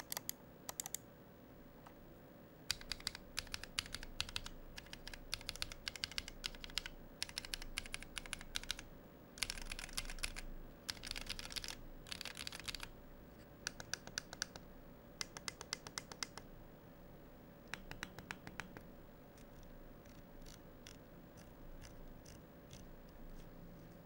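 Mechanical keys of a 12-key macropad fitted with Akko CS switches being typed on: sharp clacks in rapid flurries, thinning to lighter, sparser clicks in the last few seconds.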